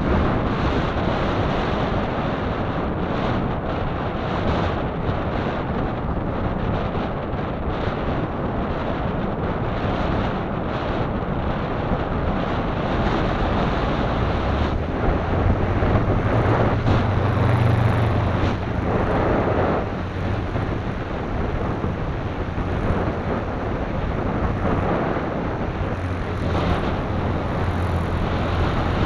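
Strong wind buffeting the camera microphone: a loud, steady rush of wind noise, with a heavier low rumble from about halfway through.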